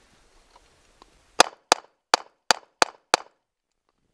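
Six rapid shots from a SAR K2 9mm pistol, about a third of a second apart, starting about a second and a half in.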